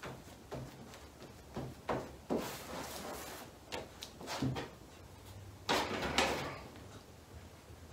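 Plastic spreader scraping and folding body filler on a mixing board, working the hardener in until the colour is even: a run of irregular short scrapes, the loudest two about six seconds in.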